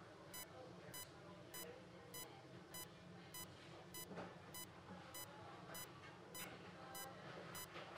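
Bedside patient monitor beeping steadily, a short single-pitched tone about every 0.6 s, the rhythm of a pulse tone following the patient's heartbeat.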